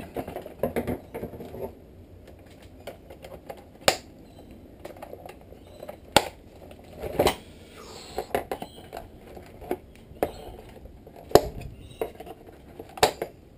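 Irregular clicks, knocks and rustling of box packaging and a plastic-bodied RC truck being handled as the truck is freed from its box, with a handful of sharper knocks standing out.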